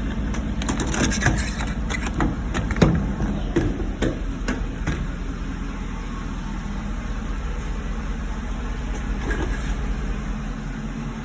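Ford F-150 engine idling steadily, with a few sharp clicks and knocks of handling in the first five seconds.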